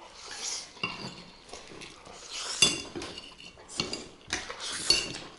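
Metal forks clinking and scraping against ceramic plates and bowls during fast eating, with several sharp clinks a second or so apart in the second half.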